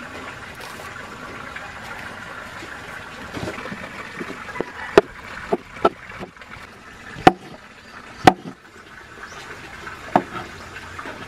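Large kitchen knife slicing peeled saba bananas on a wooden cutting board: from about five seconds in, sharp knocks of the blade on the board, irregular and roughly a second apart, over a steady low hiss.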